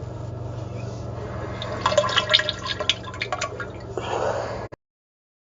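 Diarrhea sound effect: a low steady drone, then from about two seconds in a rapid run of wet, crackling splatters, ending in a short hissing gush that cuts off abruptly.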